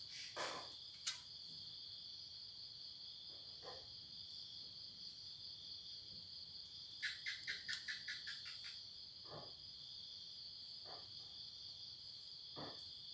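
Steady high chirring of crickets. About halfway through, a quick run of about eight sharp chirps comes at roughly five a second, with a few faint knocks around it.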